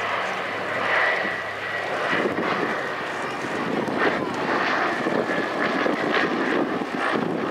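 Consolidated PBY-5A Catalina's twin Pratt & Whitney R-1830 radial engines running as the flying boat passes in flight, a steady engine noise with a faint high whine above it.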